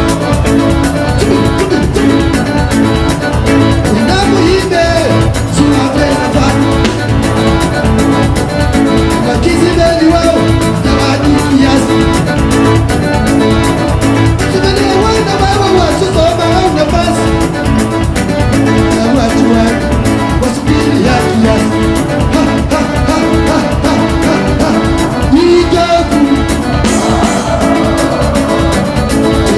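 Live band music with singing over a steady, driving beat.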